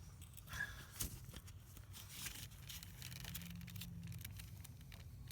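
Faint, irregular clicks and creaks of a wrench working a seized exhaust manifold bolt back and forth in a 5.3 Vortec cylinder head.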